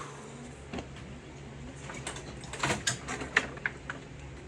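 Clicks and light clatter of welding gear being handled and taken off, with a few scattered clicks at first and a quick run of sharp clicks and clinks from about two seconds in, over a faint low hum.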